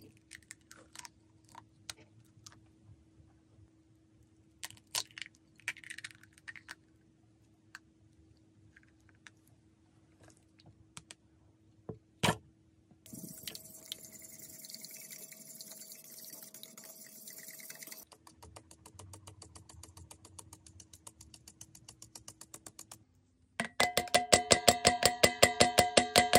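Eggs cracked on the rim of a glass mixing bowl, a few sharp taps and one louder crack, then a wire whisk beating eggs in the glass bowl as a fine, rapid clatter. Near the end a metal mesh sieve is tapped and shaken fast over the bowl to sift powder, a loud ringing rattle and the loudest part.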